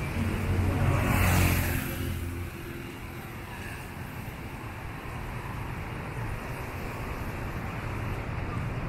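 A motor vehicle drives past close by on the road, loudest about a second in and fading over the next second, followed by a steady low hum of street traffic.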